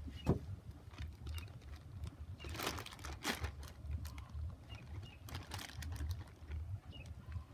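A sharp tap about a third of a second in, then scattered light rustles and scrapes as a wet salmon skin is laid out and pressed flat on a plywood board, over a low rumble of wind on the microphone.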